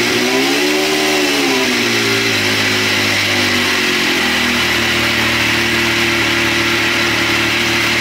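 Yamaha YXZ1000R's three-cylinder engine, fitted with a freshly installed Packard supercharger, running just after starting. The revs rise and fall over about the first two seconds, then it settles into a steady idle.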